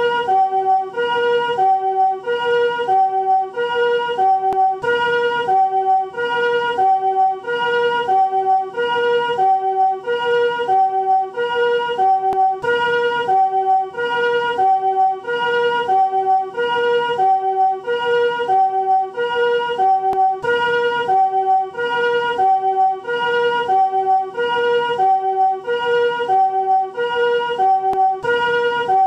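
Newest-type Japanese ambulance siren sounding its two-tone "pee-poh" call in the chord (harmonic) version, each note a blend of several pitches. It alternates steadily between the higher and lower note, one full high-low cycle a little more than a second long.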